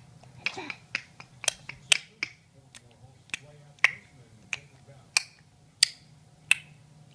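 A series of sharp clicks or snaps, about fourteen in all: a quick cluster in the first two seconds, then about one every two-thirds of a second.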